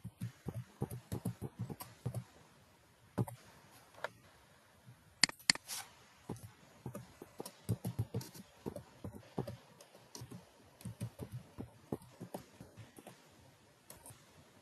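Computer keyboard typing: quick runs of keystrokes with short pauses, and a couple of sharper, louder clicks about five seconds in.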